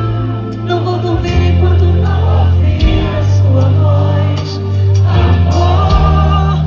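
Live Brazilian calypso band playing loud, with heavy sustained bass notes and a woman singing lead over it.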